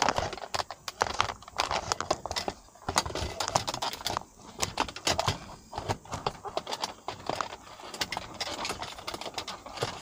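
Handling noise: irregular rustling and clicking close to the microphone, with no steady rhythm.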